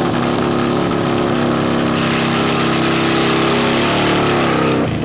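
V-twin drag motorcycle engine running steadily, held at the start line before launch; its pitch edges up slightly, then the sound cuts off suddenly just before the end.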